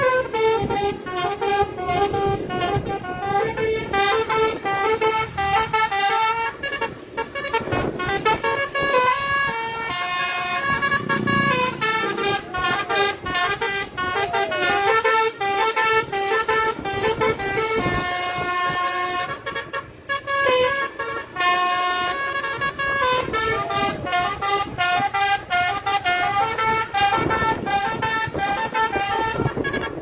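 Basuri-style telolet horn on an Indonesian tour bus playing a melody: a long run of stepping horn notes sounding several tones at once, with a couple of brief pauses about two-thirds of the way through.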